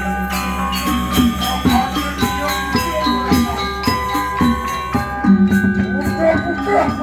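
A Balinese gamelan ensemble plays dance music: struck bronze metallophones ring in quick, busy notes over held low tones.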